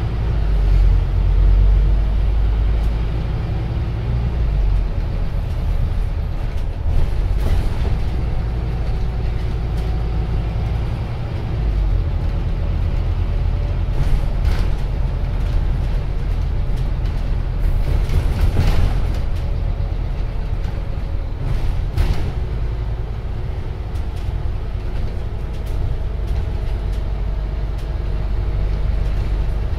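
A Scania Omnicity CN230UB single-deck bus's diesel engine and running gear heard from inside the cabin while under way: a steady low rumble with road noise, and a few brief clicks and knocks.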